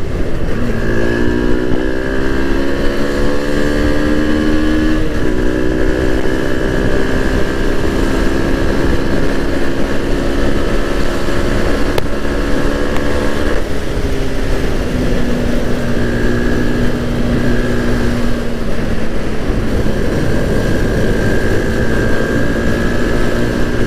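SYM VF3i 185 scooter's single-cylinder engine running steadily at cruising speed while the scooter is ridden. The engine note climbs in the first second, then drops a little about 14 seconds in and holds steady again.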